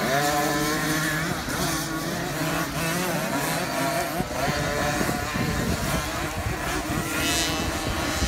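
Several 50cc youth motocross bikes racing round a dirt track, their small two-stroke engines buzzing and revving up and down as the riders accelerate and ease off.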